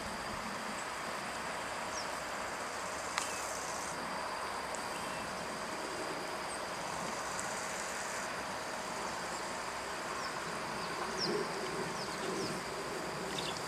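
Steady outdoor ambience of insects chirring at a constant high pitch, over a soft hiss, with two short stretches of high buzzing, a few brief high chirps and a faint click about three seconds in.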